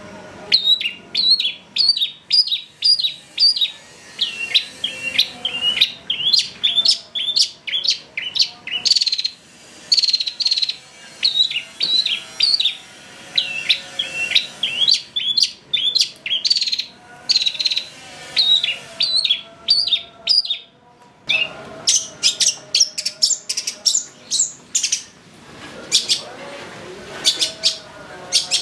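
Long-tailed shrike (cendet) singing energetically: a fast run of sharp, repeated chirping notes, about two to three a second, with a short break about two-thirds of the way through.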